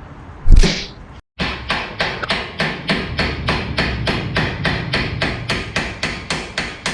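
Hand hammer blows: one hard strike about half a second in, then a steady run of repeated strikes, about three a second, as the front sway bar is being hammered loose from the car's front suspension.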